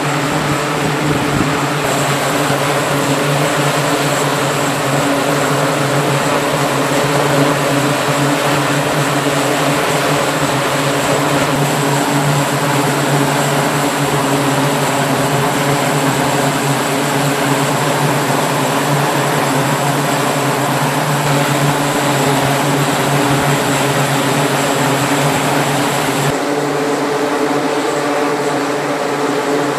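E-2D Hawkeye's two turboprop engines running with their propellers turning: a loud, steady drone with a constant high whine over it.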